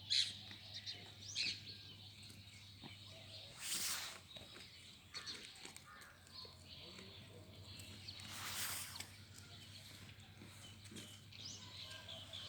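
Faint farmyard ambience with small birds chirping on and off. Two brief rushes of noise come about four and eight and a half seconds in, over a steady low hum.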